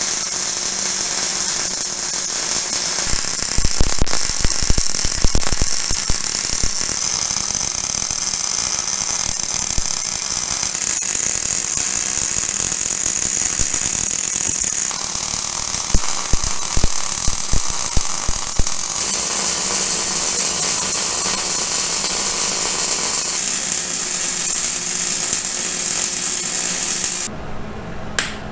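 MIG wire-feed welder arc laying a bead on a steel axle truss: a steady crackling hiss with clusters of sharper pops, cutting off near the end.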